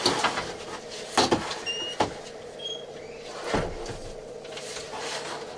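Kingroon 3D180 3D printer being slid across a table: a few knocks and scrapes against a steady hum.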